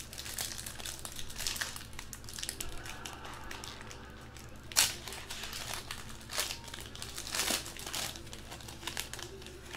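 Foil wrapper of a Panini football trading-card pack crinkling and tearing as it is opened by hand. Irregular sharp crackles come throughout, the loudest about five seconds in.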